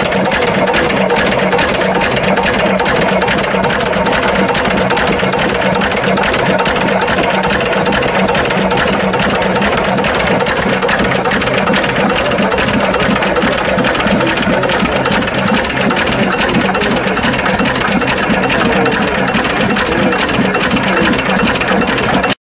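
Vintage single-cylinder Lister diesel stationary engine running steadily, with an even, rapid beat of firing strokes.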